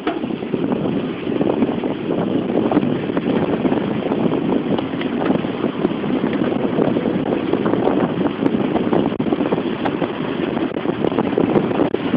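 Wind buffeting the microphone of a camera riding on a moving road bike: a steady, loud rushing noise.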